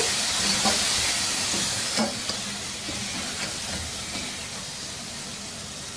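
Chicken and ground spices sizzling in hot oil in a pot, with a few light spatula knocks in the first couple of seconds as the masala is stirred in. The sizzle grows gradually quieter.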